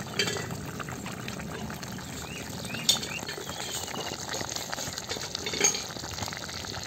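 Thick fish curry bubbling at a steady boil in a clay pot while a ladle stirs it, with three sharp clicks spread through.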